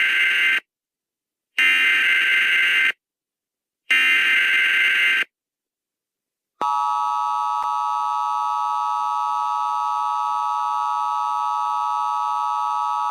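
Emergency Alert System test: the end of one SAME data-header burst and then two more harsh, screeching digital bursts, each about a second long with short silences between them. About six and a half seconds in, a steady attention tone starts. It has been reworked into a chord of several held tones by the 'G Major' pitch edit.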